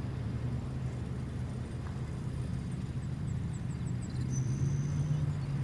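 Steady low rumble of vehicle engines, with a few faint high chirps and then a short high whistle lasting about a second, near the end.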